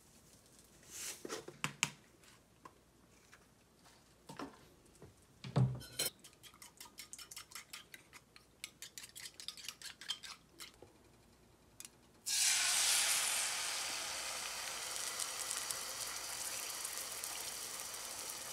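A few knocks, then a fork beating eggs against a ceramic bowl in a quick run of clicks, about four or five a second. About twelve seconds in, the eggs hit the hot frying pan and sizzle loudly, the sizzle fading slowly.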